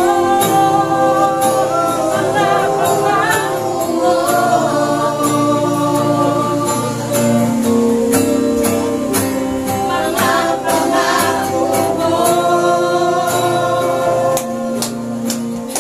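Congregation singing a Tagalog worship chorus together over instrumental accompaniment with a steady beat.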